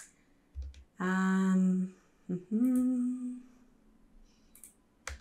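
A person humming two short, steady, level notes while picking files, with a few mouse clicks near the start and end.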